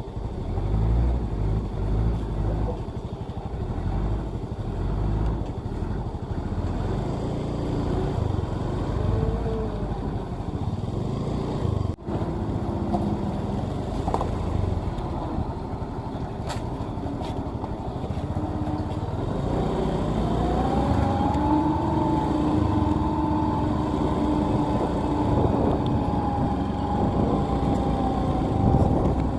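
Motor vehicle engine and road noise running steadily, with a steady higher tone joining about two-thirds of the way through.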